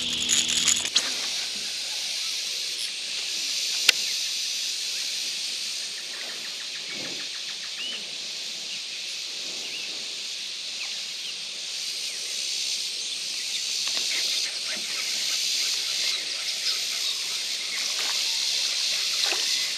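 A fish splashes as it is dropped back into the water right at the start, followed by a steady high hiss of outdoor ambience with a single sharp click about four seconds in.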